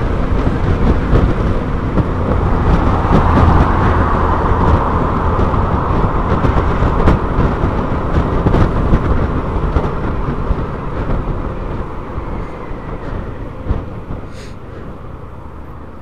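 Wind rushing over the microphone of a rider on a Honda Forza 350 scooter at speed, with road noise underneath. The rush fades gradually over the second half as the scooter slows toward queuing traffic, with a few brief clicks, the sharpest near the end.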